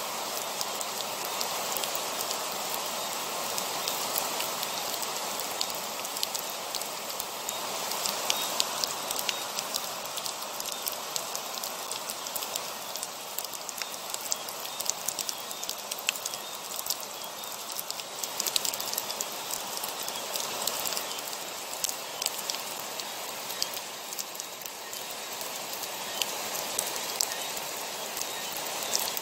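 Heavy rain falling steadily: a dense, even hiss with many sharp ticks of individual drops.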